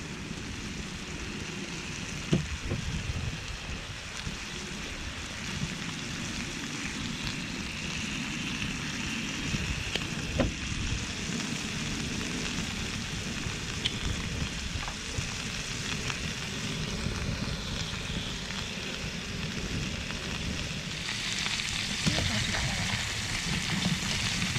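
Meat sizzling in a pot on a portable gas camping stove: a steady frying hiss with an occasional sharp pop, growing louder about three-quarters of the way through. Near the end, tongs stir the food against the pot.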